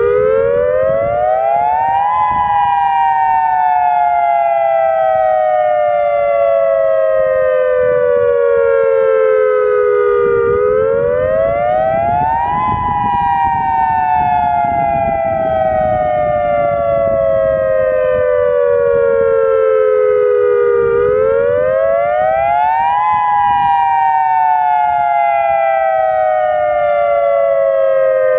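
Federal Signal Modulator 2008 dual-tone outdoor warning siren sounding the attack signal. Two tones a fixed interval apart rise quickly for about two seconds, then fall slowly for about eight, and this cycle comes three times.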